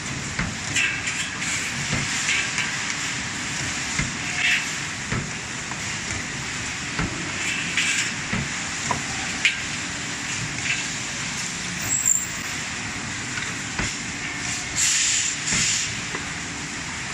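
Steel tube serpentine bending machine working amid factory noise: a steady hiss with scattered knocks and several short hissing bursts, like air being released.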